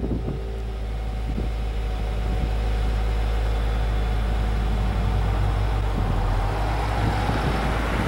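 2015 Subaru WRX's turbocharged flat-four engine running with a steady low rumble as the car rolls slowly at low speed, with some wind noise on the microphone.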